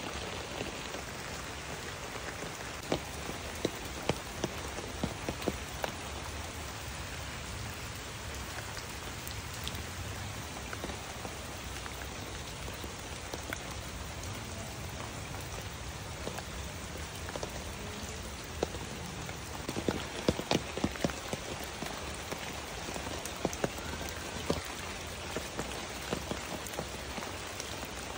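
Steady rain falling, with scattered louder drops hitting close by, a cluster of them about twenty seconds in.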